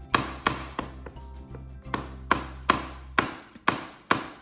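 An egg tapped against a wooden cutting board: about nine light knocks in three quick groups of three, not yet hard enough to crack the shell.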